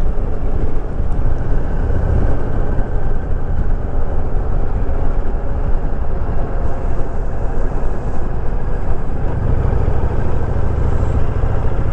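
Honda VTX 1300R's V-twin engine running steadily while riding, mixed with heavy wind rush on the microphone.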